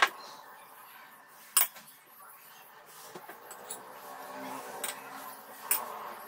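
A few sharp clicks and knocks of kitchen utensils against dishware, the loudest right at the start and another about a second and a half in, with quieter ones near the end, over faint handling noise.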